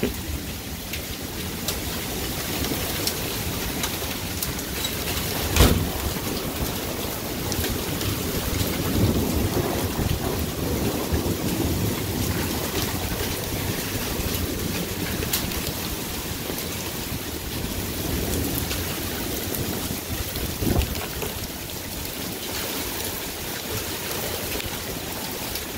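Heavy thunderstorm rain pouring steadily. There is a sharp crack about six seconds in and a low rumble of thunder swelling a few seconds later.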